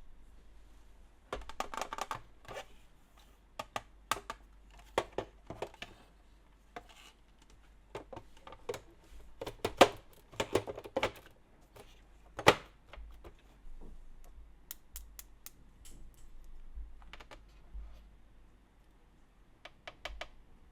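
Hard plastic toy pieces being handled: irregular clicks and clacks with short clattering runs, busiest in the middle and sparser near the end.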